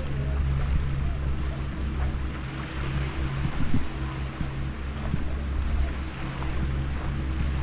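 Outdoor sea-shore ambience: wind on the microphone and surf noise under a steady low drone, with a few faint knocks.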